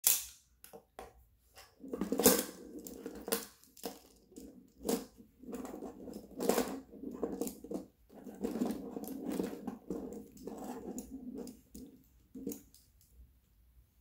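Plastic magnetic building tiles clicking and clattering as they are handled, snapped together and set down on a wooden table: a string of irregular sharp clicks with rubbing and sliding between them.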